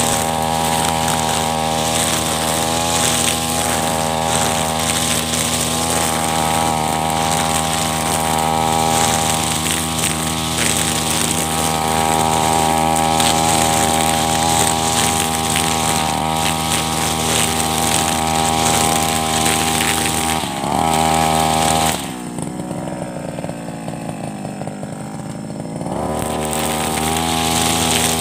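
Backpack brush cutter with a nylon trimmer line running at high throttle while cutting grass. About three-quarters of the way through, the engine drops to a lower, quieter speed for a few seconds, then speeds back up.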